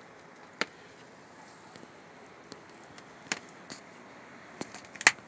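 Footsteps on crusted snow and ice: a few sharp, irregular crunches, the loudest near the end, over a faint steady hiss.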